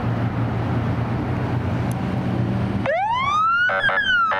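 Fire department squad truck's engine running as it pulls out, then about three seconds in its electronic siren starts, the wail rising steeply in pitch. Near the end a second, steady siren tone cuts in and out in short blasts over the wail.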